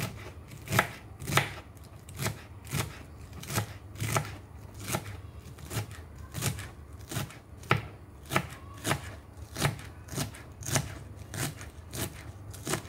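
Kitchen knife chopping spring onions on a cutting board: steady, even cuts at about three every two seconds, each a short knock of the blade on the board.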